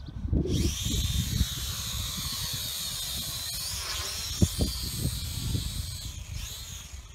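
Small quadcopter drone's motors whine as they spin up about half a second in and lift it off the grass. The pitch then shifts up and down as the drone climbs and manoeuvres for a flip, over a low rumble of wind on the microphone.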